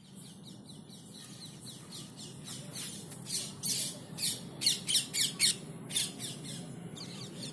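A small bird chirping: a rapid string of short, high chirps, each falling in pitch, that grow louder about halfway through.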